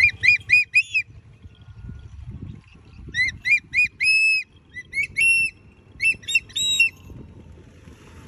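An eagle calling: shrill, squealing notes that rise and fall, in quick runs of three to five, each run ending on a longer drawn-out note. There are four runs.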